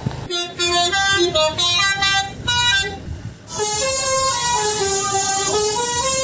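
Telolet musical multi-tone horn on an odong-odong tourist train playing a tune. Quick stepping notes run for the first three seconds, then after a brief gap a longer run of held notes.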